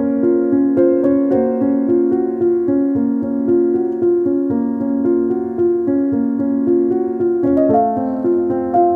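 Background piano music: a melody over held chords, the notes changing about every half second.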